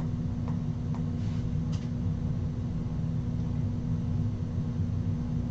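Steady low background hum with a constant tone, as of a running room appliance or fan, with a few faint clicks in the first two seconds.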